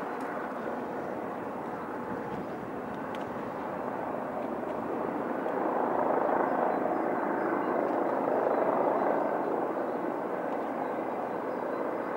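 A steam-hauled train passing at a distance: the steady noise of the locomotive and its train, which grows louder about six seconds in and eases again near the end.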